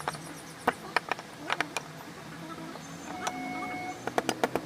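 Sharp, irregular taps, typical of a mallet driving a carving chisel into wood, coming in a quick run of several near the end. A faint steady tone sounds briefly before that run.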